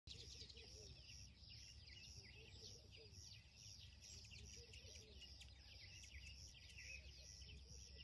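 Faint birdsong: many small birds chirping together in quick, repeated short calls, with a few lower calls mixed in, over a faint low rumble.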